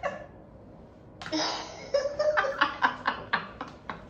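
Laughter: a run of short, quick laughs starting about a second in and lasting nearly three seconds.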